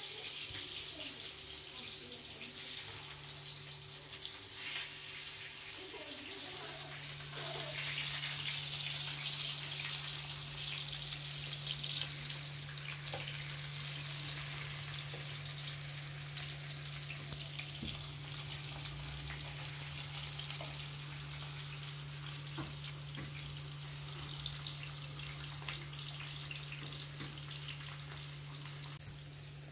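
Potato and vegetable slices sizzling in oil in a grill pan on a gas stove, a steady hiss with a few light clicks as they are turned with a fork. A steady low hum runs underneath.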